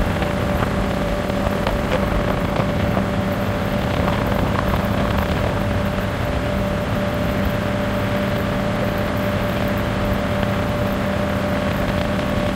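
Motorboat engine running steadily with the boat underway: a constant drone with a held hum, over a continuous rush of water and wind.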